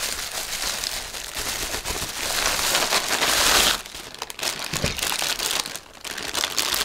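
Clear plastic packaging crinkling and rustling as hands unwrap a power adapter from its bag. It is loudest a little past the middle and eases off about four seconds in.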